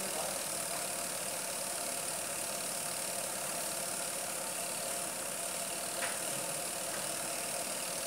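Electric motor of a National NA-250T washing machine running steadily.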